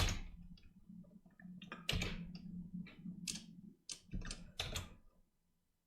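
Computer keyboard keys pressed one at a time: about eight separate sharp taps, irregularly spaced, stopping about five seconds in. A faint low steady hum lies underneath.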